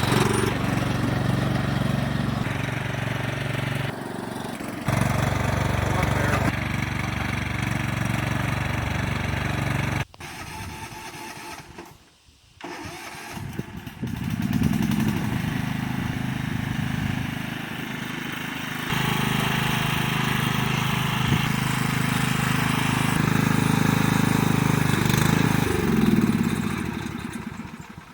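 Small single-cylinder lawn tractor engine running steadily, heard in several segments that cut in and out abruptly. It goes quiet for a moment about twelve seconds in, and its pitch shifts near the end.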